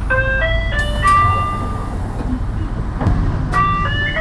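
Electronic door chime of a 2007 Hino Blue Ribbon II city bus: a short stepped melody of clear tones ending on a held note, then the melody starts again near the end, over the bus's idling engine.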